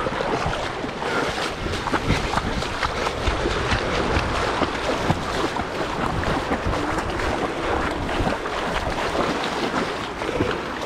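Sea water sloshing and splashing, with wind buffeting the microphone.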